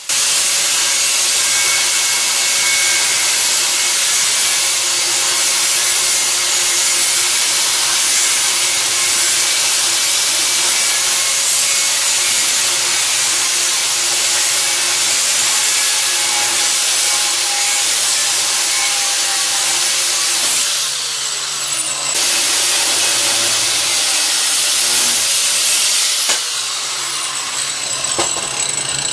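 Angle grinder with a cutoff wheel cutting through 3/16-inch steel rectangular tubing, a loud, steady grinding whine and hiss. About two-thirds of the way in the cut eases off and the motor's pitch falls for a second before it bites again. Near the end it winds down as the wheel comes off the steel.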